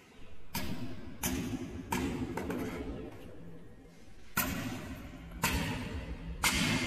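A hammer drives a nail through a wooden switch box into the wall with steady blows about once a second. There is a pause of about two seconds midway before the blows resume.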